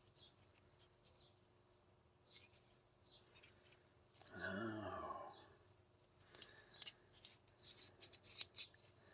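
Small metal parts of an airsoft 2011 pistol clicking and scraping as they are fitted back together by hand. The clicks come in quick clusters in the second half. About four seconds in there is a short hum from a person's voice.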